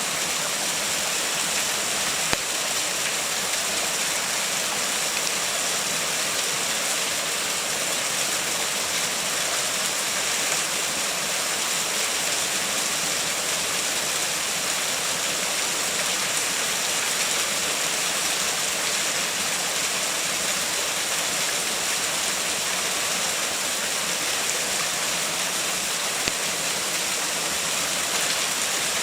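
Waterfall: water pouring and splashing steadily, a constant rushing noise.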